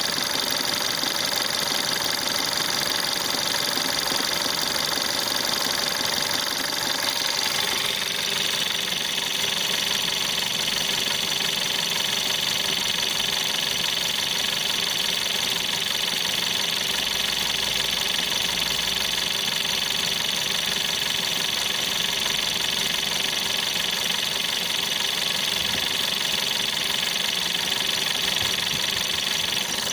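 Volkswagen 1.4 TSI CAXA turbocharged four-cylinder petrol engine idling with an extraneous rhythmic knocking, likened to an Indian beating a drum. The tone shifts about eight seconds in.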